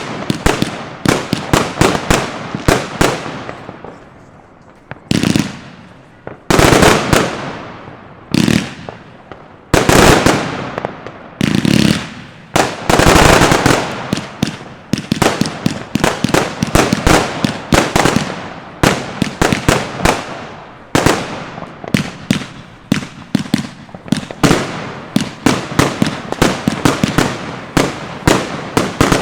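Broekhoff "Triple X" firework battery firing: a rapid run of launch thumps and aerial bangs throughout, with several louder, denser volleys of bursts and crackle near the middle.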